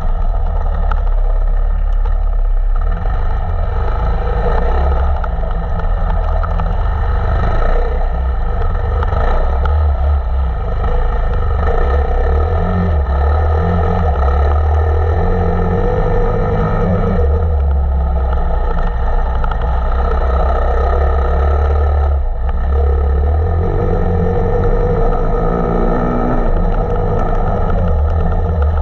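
Off-road motorcycle engine running continuously as the bike is ridden, its revs rising and falling.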